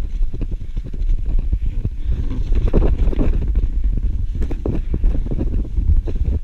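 Wind buffeting an action camera's microphone as the rider slides downhill through powder snow, a steady low rumble with the hiss and irregular scrapes of the ski or board cutting through the snow.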